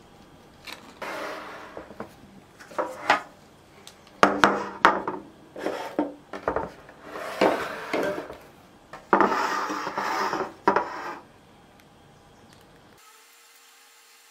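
Irregular bursts of rubbing and scraping with a few sharp knocks: a plastic piping bag being filled with madeleine batter using a silicone spatula, while baking trays are handled. The sound stops abruptly near the end.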